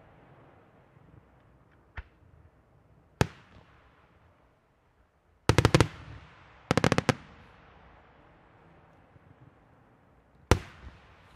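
Aerial firework shells bursting: a single bang about three seconds in, then two quick volleys of several sharp bangs in the middle, and another loud bang near the end, each trailing off in an echo.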